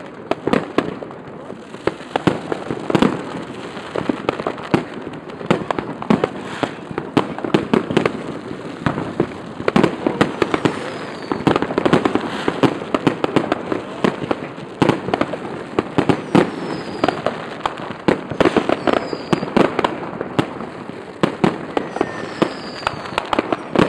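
Many fireworks going off at once: rockets launching and bursting in a dense, continuous barrage of bangs and crackles, with a few short falling whistles.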